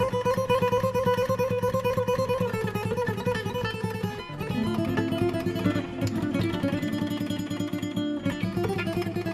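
Instrumental intro of a Bosnian sevdah song: rapidly strummed plucked strings under a held melody line, which moves lower about four seconds in.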